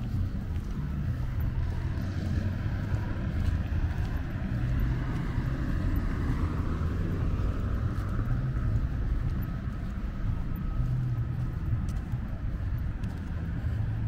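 Street ambience: a steady low rumble of road traffic, with a car passing about halfway through.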